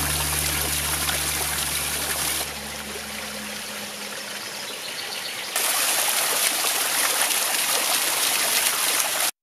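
Spring water splashing and trickling. A jet from a stone fountain spout splashes into its basin, then a quieter runlet trickles over rocks, then water pours and splashes over a small water wheel. The sound changes abruptly at about 2.5 and 5.5 seconds in, and cuts off just before the end.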